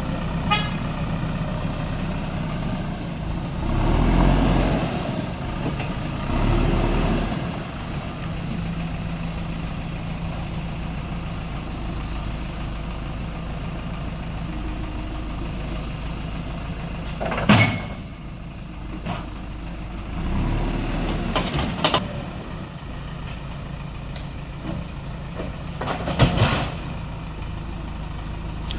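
Backhoe loader's diesel engine running steadily, revving up under load a few times. Two sharp knocks cut through, one past the middle and one near the end.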